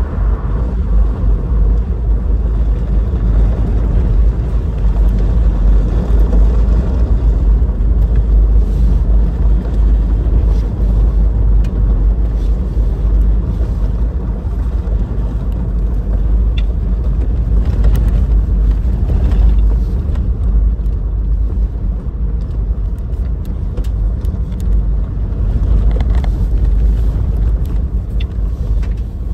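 Inside the cabin of a 2018 Toyota 4Runner driven fast on a dirt road: a steady low rumble of tyres and driveline on the dirt. A few sharp clicks and knocks come through in the second half.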